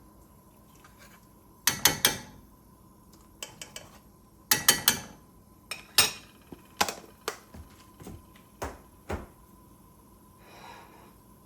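A spoon clinking and knocking against cookware, likely knocking a spoonful of gochujang paste off the spoon. It comes as three quick clusters of strikes, then a string of single taps.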